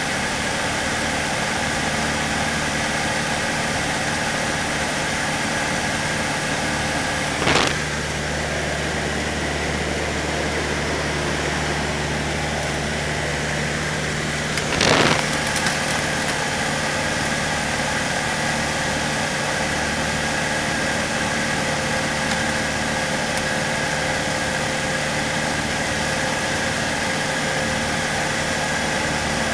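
Cessna 152's four-cylinder Lycoming engine and propeller droning steadily at constant power, heard from inside the cabin, with two brief bursts of noise about seven seconds apart.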